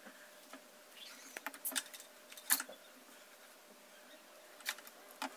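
Faint rustling of hair and a few small clicks and ticks as hair is handled and wrapped onto a chopstick curling wand, the loudest click about two and a half seconds in.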